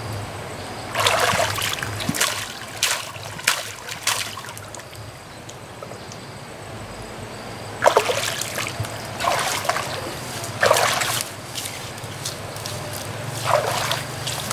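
Splashing and sloshing in shallow muddy water as hands scoop and lift through it, in irregular bursts with a quieter stretch in the middle. A steady low hum runs underneath.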